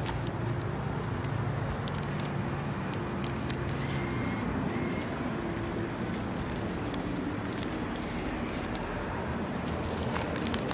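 Steady low mechanical hum, with the crackle and rustle of paper dollar bills being leafed through in a wallet.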